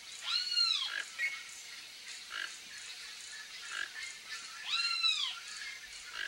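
Two harsh bird calls about four seconds apart, each rising and then falling in pitch over about half a second, over faint chirping of other birds.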